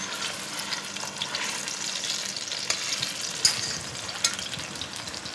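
Slab of pork belly sizzling steadily in hot fat in a stainless steel pot as it sears, with a couple of sharper crackles near the end.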